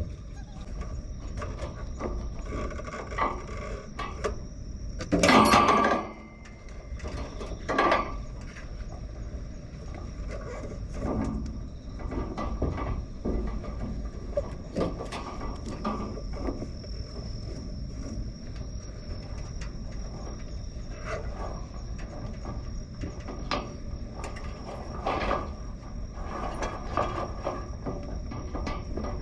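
Typhoon wind buffeting and rumbling, with scattered knocks and rattles and one louder rush of noise about five seconds in; a faint steady high tone runs underneath.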